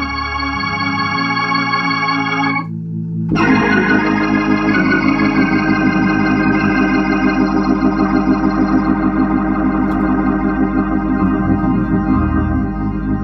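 Hammond organ played through a Leslie 122 speaker with a freshly rebuilt amplifier: sustained chords, a brief lift of the upper notes near three seconds in, then chords with a fast, even warble.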